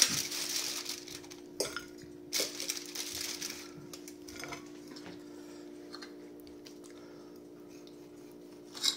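Aluminium foil crinkling in two bursts as food is handled from a foil packet, with knocks and clinks of cutlery on china plates. A steady low hum runs underneath.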